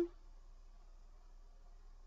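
Quiet room tone with a faint steady low hum; nothing else stands out.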